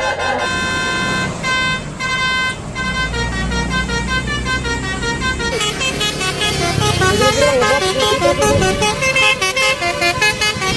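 Bus 'telolet' multi-tone horn of the Basuri type playing its tootling melody: a few held notes with short breaks, then from about three seconds in a quick run of changing notes.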